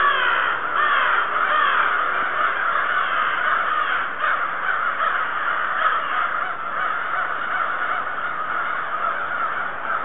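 A huge flock of black birds calling all at once: a dense, unbroken chorus of many overlapping chirps and calls.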